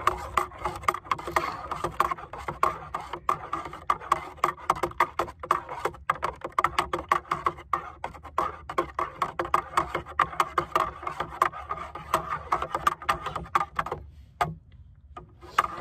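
A metal spoon stirring hot chocolate in a metal cup, clinking quickly against the cup's sides about four or five times a second, and the cup rings with each knock. The stirring stops for about a second near the end, then starts again.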